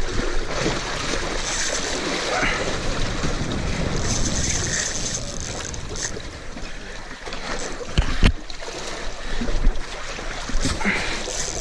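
Wind buffeting the microphone over water sloshing against a boat at sea, with a couple of heavy thumps about eight seconds in.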